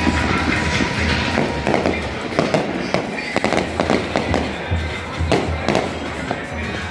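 Aerial fireworks going off in a quick string of sharp bangs and crackles, with music playing.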